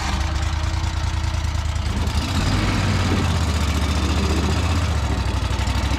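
Prodrive surface-drive mud motor running steadily just after starting, a low hum with fast regular pulsing that gets a little louder about two seconds in.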